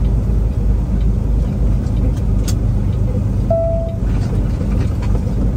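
Semi truck's engine running steadily, heard from inside the cab as the truck rolls through a turn. A sharp click comes about two and a half seconds in, and a short single-tone beep about a second later.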